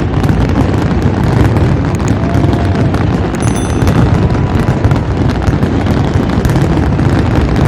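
A dense, continuous barrage of firework bangs and crackles, loud and unbroken, with many overlapping reports.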